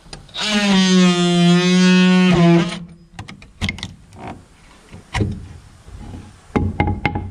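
Cordless DeWalt oscillating multi-tool buzzing loudly as its plunge blade cuts through a wooden siding board. It stops after about two and a half seconds. Then come several sharp wooden knocks and taps as the cut-out piece is worked free.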